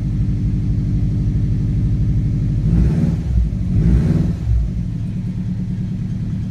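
Subaru Legacy GT's turbocharged 2.5-litre flat-four running at idle through a newly fitted aftermarket cat-back exhaust. It is revved briefly twice, about three and four seconds in, and then settles back to a steady idle.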